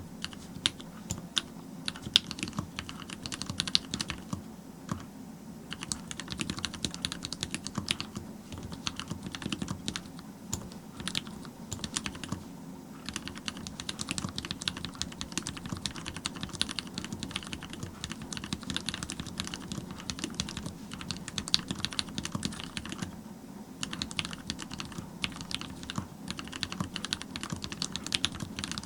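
Continuous typing on a mechanical keyboard with Cherry MX Black linear switches on 70g springs, a brass plate and Leopold keycaps: rapid key clacks in bursts with brief pauses between runs.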